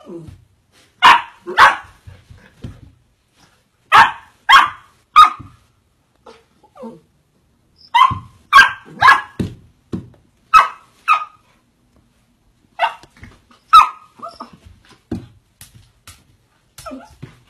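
A fluffy puppy barking at its own reflection in a mirror: short, sharp yapping barks in quick runs of two to four, more than a dozen in all, with brief pauses between the runs.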